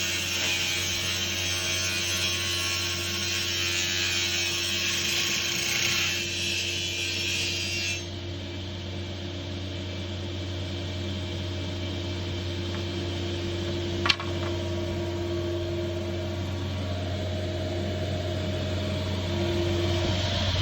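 Meclobo MA-15 multi-rip saw running with a steady motor hum. For the first several seconds there is loud hissing noise of the blades ripping through wood, which eases off about six seconds in and drops away around eight seconds as the cut ends. A single sharp click comes about fourteen seconds in, and the cutting noise builds again near the end.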